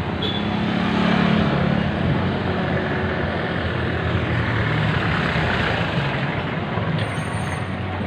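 City street traffic: a motor vehicle's engine running close by, loudest about a second in, over a steady traffic hum.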